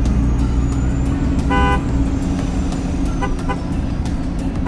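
A steady low vehicle-engine rumble with a car horn tooting: one longer toot about one and a half seconds in, two short beeps a little after three seconds, and another beep starting at the very end.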